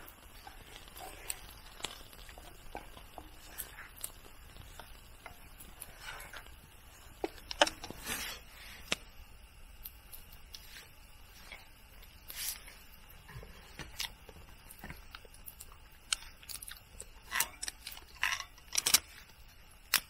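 Scattered small clicks and crackles of food being handled by hand over a small campfire, including a mushroom being torn apart, with the loudest snaps about eight seconds in, around twelve seconds and again near the end.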